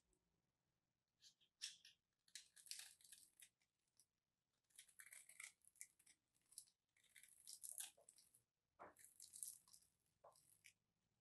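Dry bar soap, scored into small cubes, crumbling and crunching under the fingertips: soft, crisp crackles in short bursts, about six or seven of them with brief pauses between.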